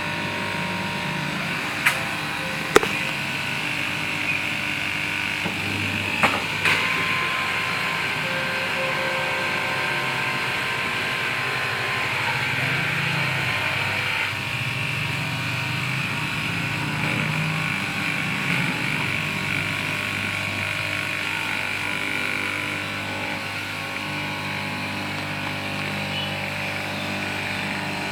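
Electric fabric cutting machine running steadily with a constant motor hum, with a few sharp clicks and knocks in the first seven seconds.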